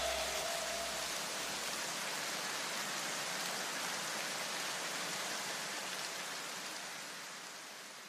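A white-noise wash left as the tail of an electronic dance track once the beat cuts off, an even hiss with a low rumble under it for the first second that slowly fades out.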